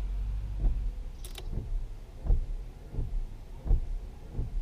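Turn signal clicking steadily in a 2003 Chevrolet Silverado cab, about one and a half clicks a second, as the repaired multi-function switch is tested. A sharper click sounds about a second in.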